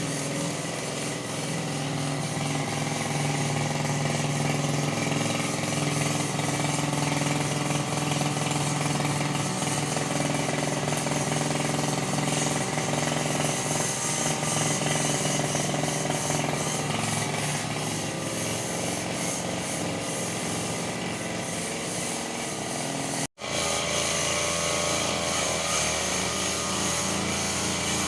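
Small petrol engine of a brush cutter running steadily, with a momentary dropout about three-quarters of the way through.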